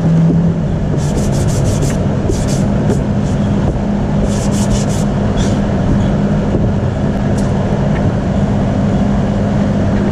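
Sandpaper rubbed by hand over a cured filler surface in short scratchy strokes, coming in a few quick runs of several strokes each, over a steady machine hum.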